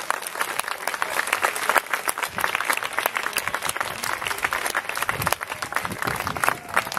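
Audience applauding: dense, steady clapping from a crowd at the end of a piece of music.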